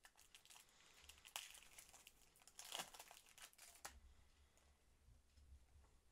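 Foil wrapper of a trading-card packet crinkling and tearing as it is opened and the cards pulled out, quiet and crackly, dying down after about four seconds.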